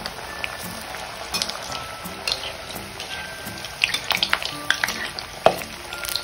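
Pieces of kothimbir vadi deep-frying in hot oil, sizzling steadily with scattered crackles as a slotted spoon moves them around. The crackling gets busier about four seconds in, with one sharp pop near the end.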